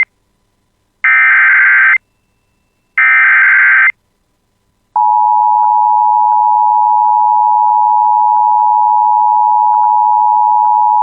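Emergency Alert System SAME header: the end of the first data blast and then two more, each about a second long with a second between them. After a second's pause, the steady EAS attention tone starts about five seconds in and holds, announcing a severe thunderstorm warning.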